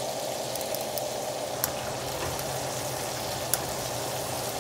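Food sizzling and bubbling steadily in pots and oil on a stovetop, over a low steady hum, with two light clicks a couple of seconds apart.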